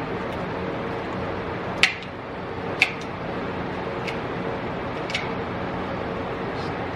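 Several sharp clicks and clinks about a second apart, the first two loudest, as parts of a rusty old pinball machine are handled and pulled apart, over a steady background hum.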